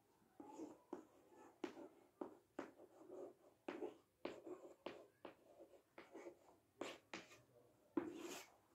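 Chalk writing on a chalkboard: faint, irregular short taps and scrapes, one for each stroke of the letters.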